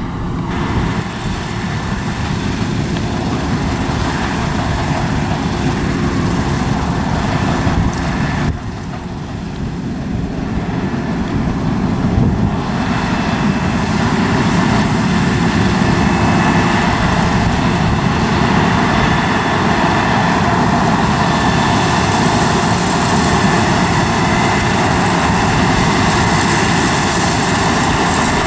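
New Holland combine harvester at work cutting oilseed rape: a steady drone of its diesel engine and threshing machinery. The sound drops abruptly about eight seconds in, then grows louder as the machine comes close.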